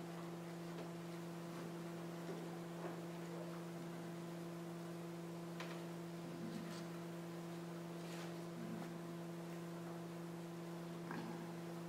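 Steady electrical hum, two low tones holding unchanged, with a few faint scattered clicks.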